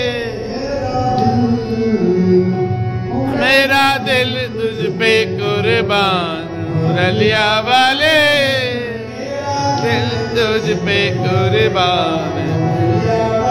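Hindi devotional song to Krishna (a bhajan): a singer's voice over instrumental backing, with sung phrases about a third and about half of the way through.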